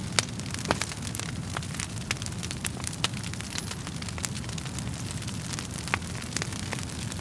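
Wood fire in a fireplace crackling, with irregular sharp pops of the burning logs over a steady low rumble of the flames.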